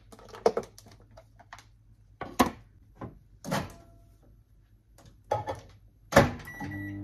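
Light clicks and knocks of a plastic food container and a kitchen cabinet being handled. About six seconds in, a microwave door shuts with a loud thunk. Then come a couple of button beeps and the steady hum of the microwave oven starting to run.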